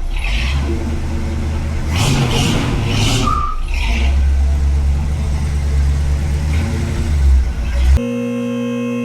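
Car engine and exhaust running, with a few swells in the revs. Music takes over abruptly near the end.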